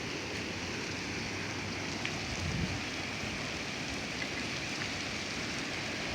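Steady rushing hiss of gale-force storm wind blowing through trees.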